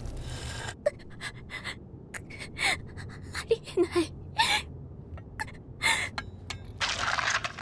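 A young woman's voice gasping and panting in short, strained breaths, with a few brief whimpering cries around the middle: the sound of someone straining in pain against her own hands.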